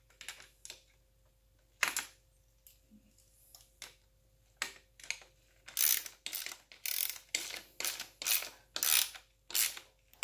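Ratcheting wrench clicking as a bracket bolt is tightened by hand: a few scattered clicks at first, then quick back-and-forth strokes, about two a second, from about six seconds in.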